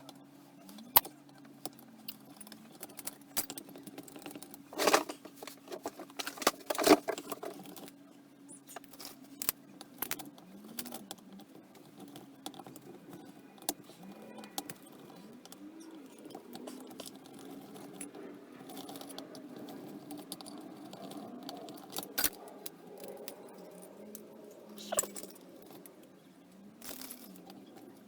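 Small metal carburettor parts and tools clinking and clicking as a Dellorto DRLA 40 sidedraught carburettor is taken apart by hand, in scattered knocks with the loudest around five and seven seconds in.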